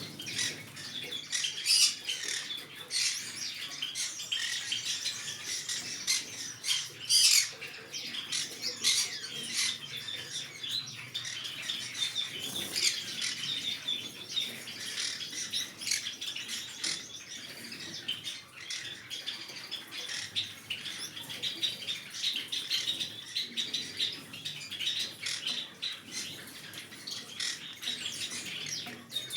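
Green-cheeked conure chattering in a run of rapid, high-pitched chirps and squawks, with two louder squawks about two and seven seconds in.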